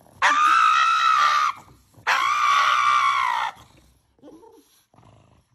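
Pug screaming at having its nails clipped: two long, high-pitched, steady screams, each about a second and a half, the second starting about two seconds in.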